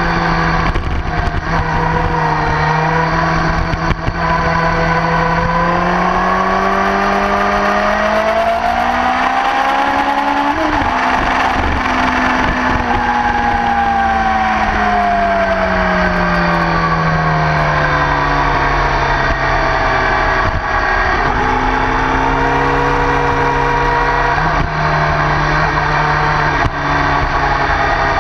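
Motorcycle engine running hard on track. Its pitch holds steady, climbs for a few seconds, breaks briefly about ten seconds in, then falls slowly over several seconds as the bike slows, before settling steady again.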